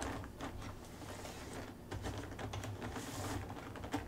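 Hands working at toy packaging: a quick run of small light clicks and taps, with brief rustles of wrapping about a second in and again near three seconds.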